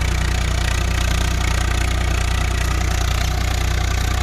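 Swaraj 855 tractor's diesel engine running steadily at an even beat through a newly fitted exhaust silencer.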